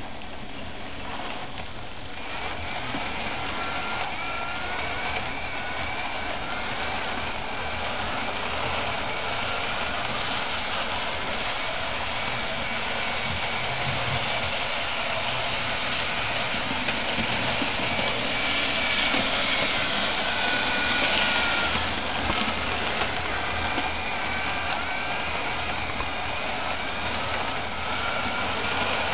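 Hornby Flying Scotsman model locomotive, tender-driven, running on its track. Its small electric motor whirs and its wheels roll along the rails, giving a steady running noise with a faint whine that rises and falls in pitch as the train circles the layout.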